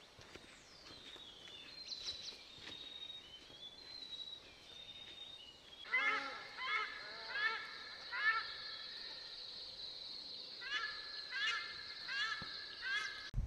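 A weka calling: two runs of about five loud, repeated, honk-like notes, each rising at the end, the first about halfway through and the second near the end. Before them, thin high whistles slide downward from a smaller bird.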